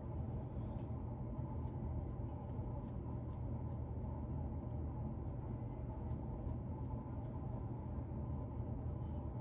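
Scratching at beard hair and skin to loosen dandruff: faint, irregular scratchy ticks over a steady low hum.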